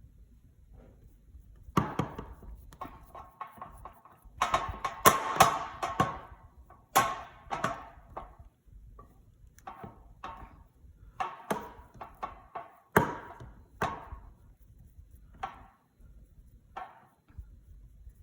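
Sticky whole-grain bread dough being handled on a countertop: irregular thuds, slaps and knocks, busiest for a few seconds in the middle.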